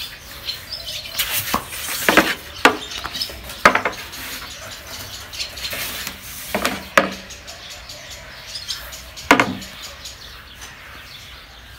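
Clatter of a rolling pin knocking on the board as dough is rolled out thin: a handful of short, sharp knocks at uneven gaps.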